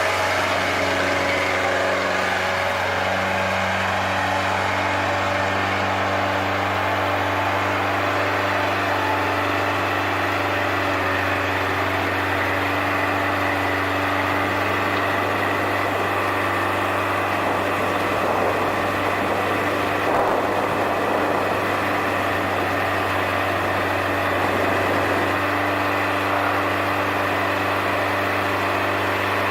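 Bobcat 751C skid steer's engine running at a steady speed. Its even tone wavers and roughens for a stretch in the middle before settling again.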